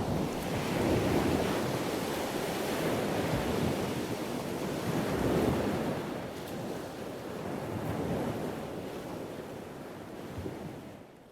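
Surf breaking on the beach in slow swells, with wind buffeting the microphone, fading out near the end.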